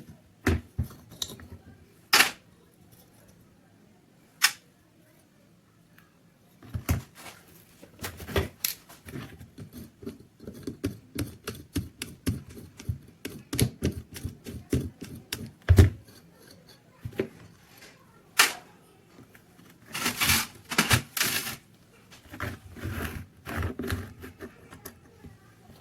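Irregular clicking and clattering of small hard parts being handled and worked on a bench, with a short run of harsher scraping about twenty seconds in.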